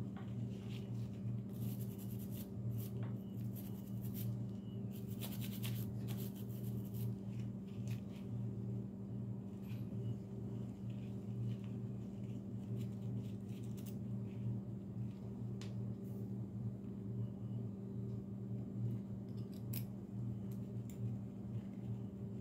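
Brass cleaning rod and brush scraping through a steel pistol barrel in short scratchy strokes, busiest in the first several seconds and sparse after, over a steady low hum.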